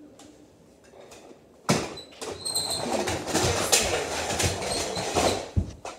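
A sudden sharp knock, then several seconds of plastic toys clattering and rattling against each other, with another knock near the end.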